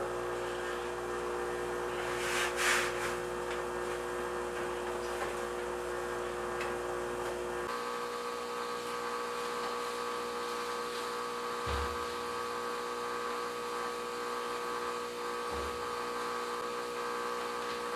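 Steady electrical hum made of several fixed tones, whose pitch mix changes about eight seconds in, with a brief rustle near the start and two faint low thumps later on.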